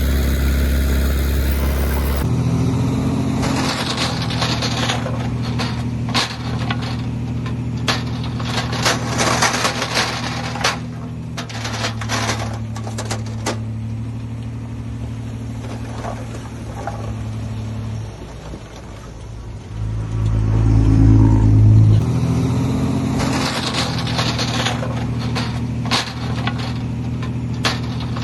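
Heavy earthmoving machine's diesel engine running steadily, its pitch shifting a few times, with frequent clanks and knocks of metal and dirt. A louder low engine rumble rises about two-thirds of the way through.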